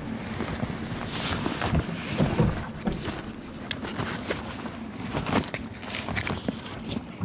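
Footsteps of a person walking, sharp irregular steps about two a second over a low rumble of wind on the microphone.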